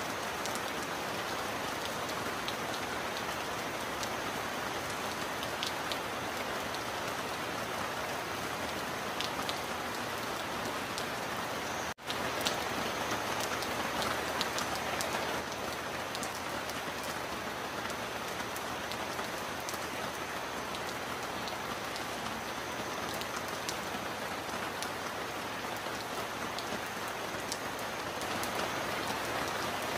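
Steady heavy rainfall, a dense even hiss with scattered sharp drop ticks. The sound cuts out for an instant about twelve seconds in.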